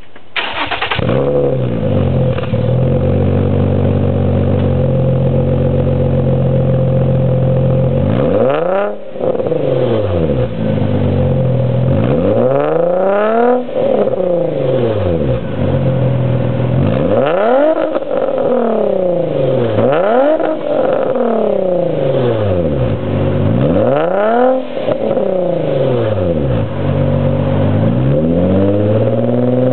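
Infiniti G35's 3.5-litre V6, breathing through resonated test pipes and a titanium single-exit exhaust, starts up and settles into a steady idle. About eight seconds in it is revved again and again in quick blips, each rising and falling, every two to three seconds.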